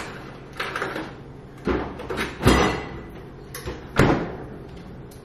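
A series of knocks and thuds, like doors or cupboards, with the two loudest about two and a half and four seconds in.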